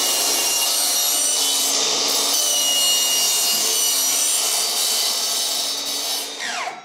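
Milwaukee 7 1/4-inch cordless sliding miter saw running at a steady high whine as its blade is slid through 1/4-inch plywood. Near the end the trigger is let go and the electric brake stops the blade quickly, the pitch falling fast.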